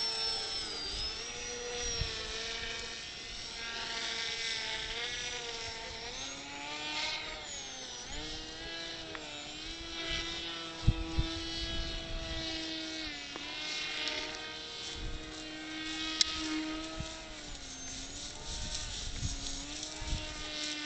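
Motor and propeller of a radio-controlled foam motor glider, a steady whine whose pitch drops and rises several times as the throttle changes. Gusts of wind thump on the microphone now and then.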